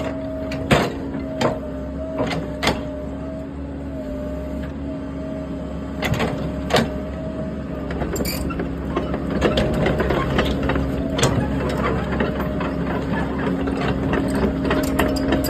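Caterpillar mini excavator's diesel engine running under hydraulic load with a steady hum, with a few sharp metal knocks as the boom and blade move. From about nine seconds in, a denser, louder clatter of steel track links as the machine props itself up on boom and blade and runs a raised track.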